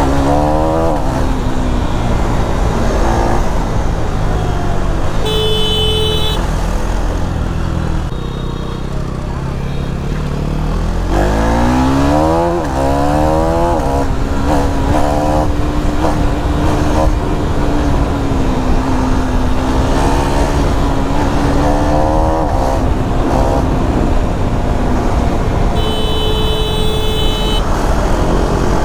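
KTM Duke 390 Gen3 single-cylinder engine on the move with wind rush: it eases off early, revs up through the gears in quick rising sweeps about halfway, then holds a steady cruise. A horn toots briefly twice, about five seconds in and near the end.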